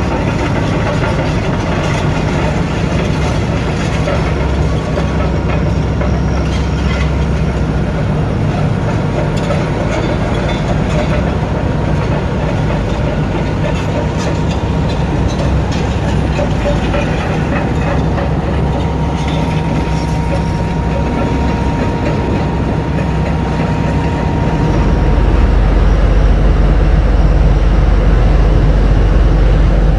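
Heavy diesel mining machinery running: a steady, deep engine drone that grows louder and deeper about 25 seconds in.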